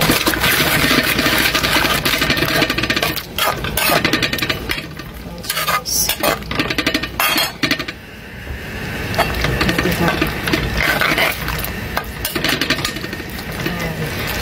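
Metal spoon stirring sugar into sweet-and-sour sauce in a metal pan, with repeated scrapes and clinks against the pan, easing off briefly about halfway.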